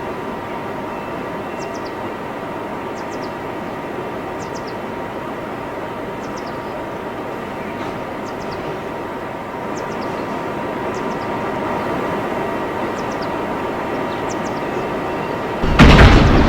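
Steady running hum inside an R142A subway car, with a thin steady whine, then a sudden loud sound near the end.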